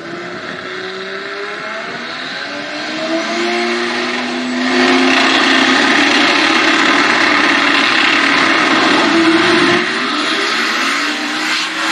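Drag racing cars' engines at the starting line, including a 2500 hp twin-turbo V8, revving up and down in pitch. About five seconds in they get much louder and are held at high revs. Near the end the engine note changes and rises as the yellow car pulls away.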